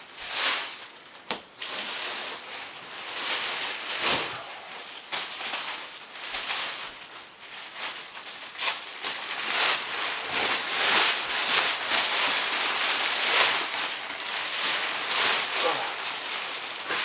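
Plastic mattress wrapping crinkling and rustling in irregular bursts as it is handled and pulled off the mattress.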